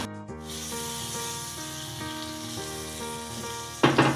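Butter melting and sizzling in a hot non-stick frying pan, a soft frying hiss, with a sudden louder burst near the end.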